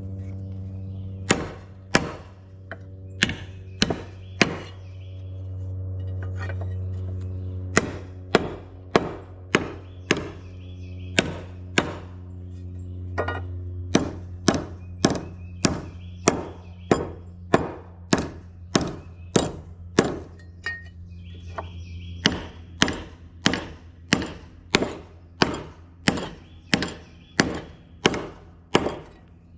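Hammer blows straightening bent metal steering-line guards from a backhoe's front axle: a handful of spaced strikes, then a steady run of sharp blows at about one to one and a half a second, with a steady hum underneath.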